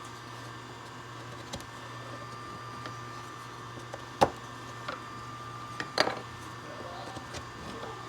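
Wooden beehive frame parts knocking and clicking as they are handled and pressed together: scattered sharp knocks, the loudest about four seconds in and a quick cluster about six seconds in, over a steady low hum.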